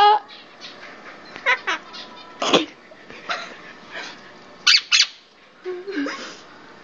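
Pet bird mimicking human laughter: a string of short, separate laugh-like calls and squawks, the loudest about two and a half and five seconds in.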